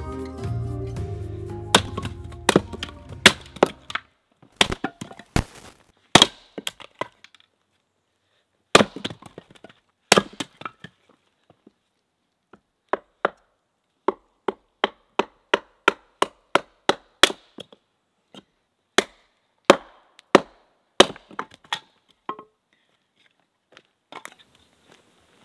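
Hatchet chopping firewood into kindling on a wooden chopping block: a long series of sharp blade strikes into the wood, some with a crack as the piece splits, and in places a quick run of about three light taps a second. Background music fades out over the first few seconds.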